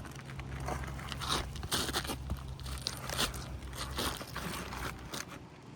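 Asphalt roof shingles being lifted and worked loose, giving irregular crackling and scraping. A steady low hum runs underneath and stops about four seconds in.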